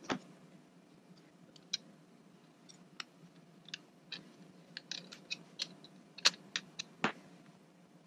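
Light, irregular clicks and ticks of a small screwdriver turning screws into the metal hard-drive mounting plate of a Mac Mini, with a few sharper clicks as the tool and screws are handled.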